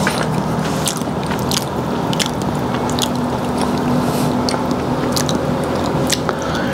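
Chopsticks clicking and scraping against a plate as cooked fish is picked apart, a sharp tick every second or so, over a steady low hum.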